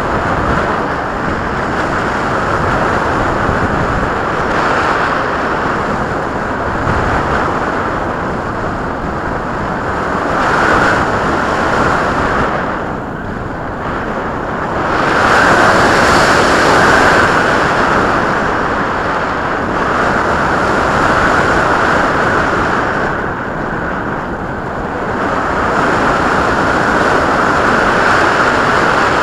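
Steady rushing wind noise on the microphone of a camera carried by a Skywalker RC plane in flight, swelling and easing in waves.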